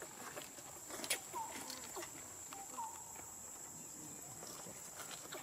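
Dry leaves rustling and crackling as macaques move over leaf litter. A short chirping call, rising then falling, repeats about every second and a half.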